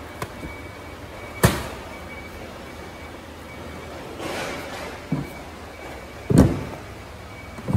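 A 25 kg paper sack dropped into a stackable plastic crate lands with a sharp thud about one and a half seconds in. Paper rustles and a low knock follow, then the loaded crate is set down on a second crate with a heavy thud, and there is another knock near the end.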